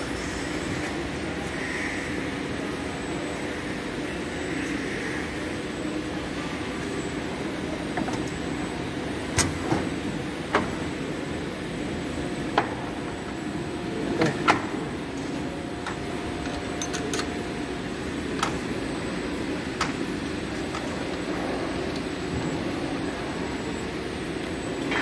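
Steady factory machinery hum, broken by a handful of sharp metallic clicks and knocks from about the middle on as the bag machine's upper seal bar assembly is handled and fitted into place.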